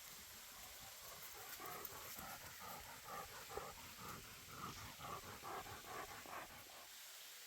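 A dog panting in quick, even breaths, about three a second, starting a little over a second in and stopping about six and a half seconds in.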